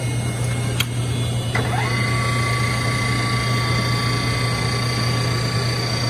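Lathe running with a steady low hum. A sharp click comes just under a second in, and about a second and a half in a steady high whine starts with a short rising glide and holds.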